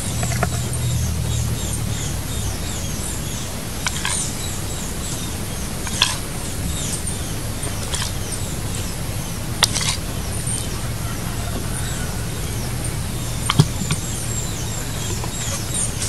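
Birds chirping again and again in short, high, falling calls over a steady low rumble, with a few sharp clicks about four, six, ten and fourteen seconds in.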